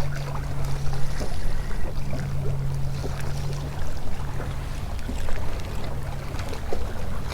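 Fishing boat's motor running with a steady low hum, under a wash of water and wind noise and a few small scattered clicks.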